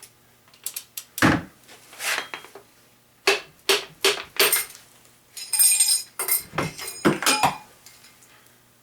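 A series of sharp metallic knocks and clanks, about a dozen, as a piston and rod are knocked out of a 1977 Chevy 350 cylinder, with a brief ringing clang a little past the middle. The piston's ring is catching on the ring ridge at the top of the bore.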